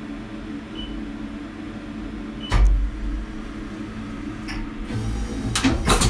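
CNC milling machine humming steadily as it starts a cycle, with a sharp clunk about two and a half seconds in and a few mechanical clicks near the end as the spindle head moves down.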